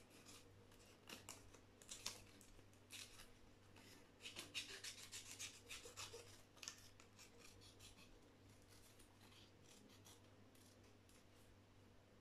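Faint, irregular snips and scratches of small scissors, thickest over the first eight seconds and sparse after, over a low steady hum.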